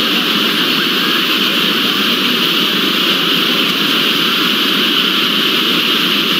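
Many video soundtracks playing on top of one another at once, blended into a dense, steady noise in which no single voice or sound stands out.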